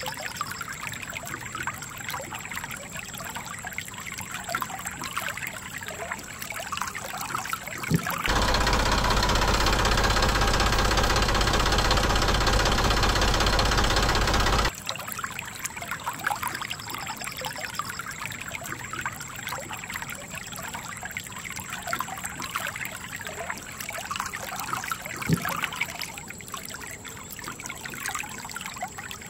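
Shallow stream water trickling and pouring over sand and around a small toy tractor. For about six seconds in the middle, a much louder steady motor noise starts abruptly, drowns out the water, and then cuts off.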